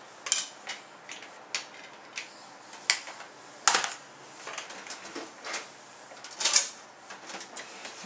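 Scattered sharp clicks and clacks of a plastic CD game case and disc being handled on a desk, a handful of separate knocks a second or so apart.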